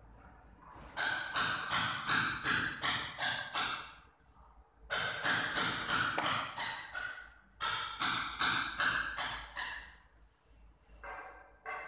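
Three runs of quick, evenly spaced hammer taps, about three a second, each with a ringing tone, broken by short pauses.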